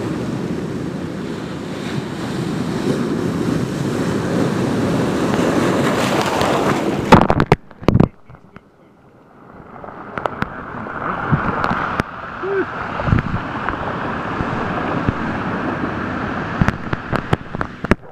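Ocean surf breaking and rushing over rocks at the base of a jetty, building to a loud crash about seven seconds in, after which the sound cuts out briefly. Rushing water then returns with scattered knocks and rubs as the camera is handled.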